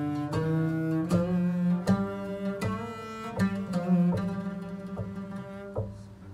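Solo cello played with the bow: an Arabic samai melody in maqam 'Ushshaq, a run of separate notes, each starting with a clear bow attack. It grows softer near the end.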